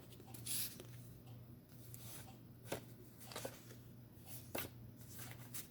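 Tarot cards being handled: scattered soft slaps and rustles of the cards, about one a second, over a faint low hum.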